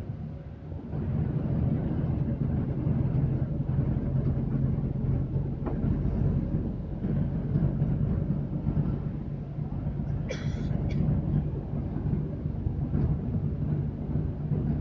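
Steady low engine drone and rolling noise heard from inside a moving vehicle, with a short high-pitched squeal about ten seconds in, followed by a brief second one.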